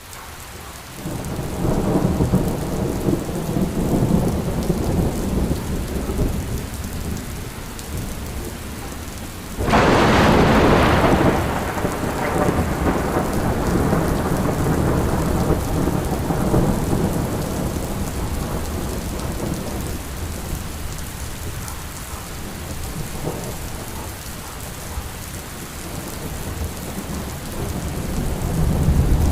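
Steady rain falling during a thunderstorm, with thunder rumbling in the first few seconds. About ten seconds in a sudden, loud thunderclap cracks and rolls away over several seconds, and more thunder builds near the end.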